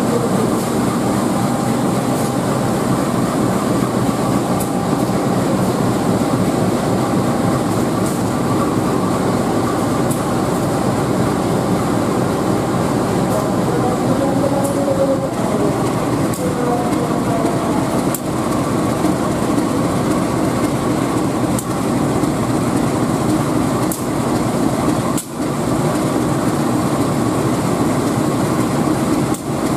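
GE CC201 diesel-electric locomotive's V8 diesel engine running steadily, heard up close.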